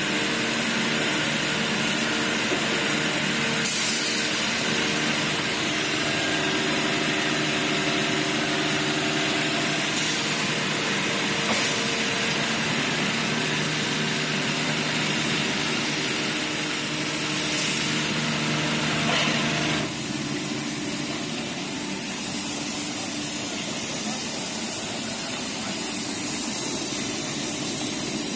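Automatic car wash: high-pressure water jets spraying a car with a steady hiss over the steady hum of the wash machinery. About twenty seconds in, the hum stops and the sound drops to a softer, even spray.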